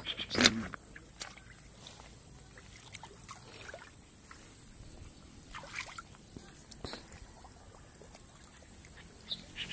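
Faint water sloshing and trickling with a few scattered soft rustles and clicks, from wading through a flooded water spinach patch.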